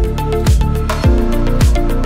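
Background music with a steady kick-drum beat, about two beats a second, over held chords.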